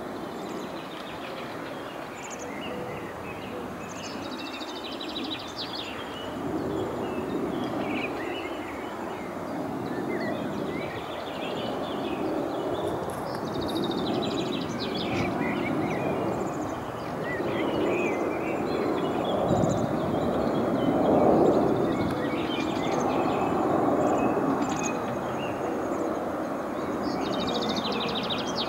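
Boeing C-17 Globemaster III's four turbofan engines on landing approach: a low rushing jet noise that grows steadily louder as the aircraft comes closer. Small birds chirp throughout.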